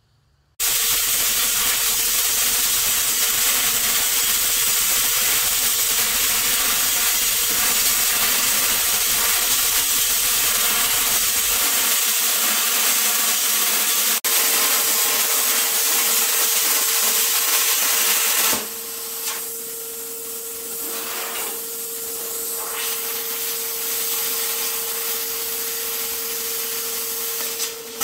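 Plasma cutter cutting 1/8-inch steel plate: a loud, steady hiss with a steady tone under it, starting about half a second in and dropping somewhat quieter about two-thirds of the way through.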